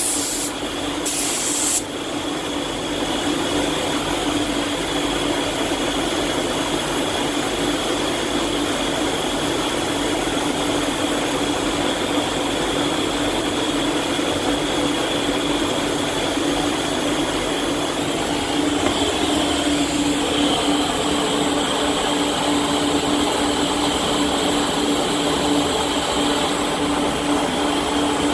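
Steady rushing air and hum of spray-painting in a paint booth. The Iwata Hakone spray gun's compressed-air hiss is sharper about a second in and cuts off suddenly just before two seconds, with the booth's steady air rush continuing.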